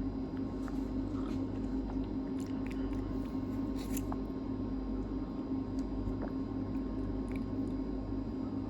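Steady low hum, with a few faint clicks and soft handling or mouth noises scattered through it.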